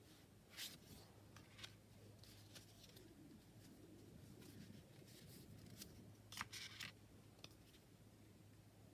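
Faint, scattered rustles and light taps of tarot cards being handled and flipped, over a low steady hum. The loudest group of brushing sounds comes about two-thirds of the way through.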